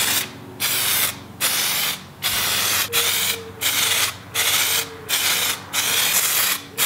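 Aerosol can of Autodip rubberized spray coating hissing in a string of short bursts, about one to two a second, as a heavier second coat goes on.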